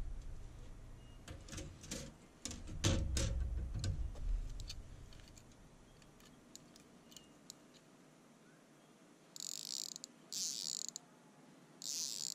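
Knocks and clicks of fly-rod sections being handled over a glass tabletop, then three short buzzing ratchet runs of a Cabela's fly reel's drag as the spool is spun by hand near the end.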